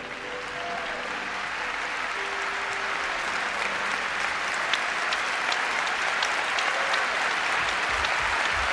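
A large arena crowd applauding at the end of a figure skating performance, the applause swelling steadily louder. The last held notes of the music fade out in the first few seconds.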